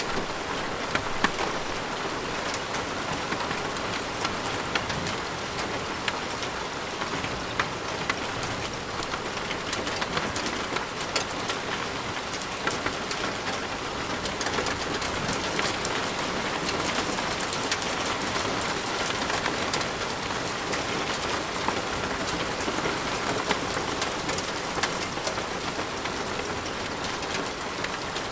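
Steady rain falling on a surface, a dense even hiss with many individual drops ticking sharply throughout.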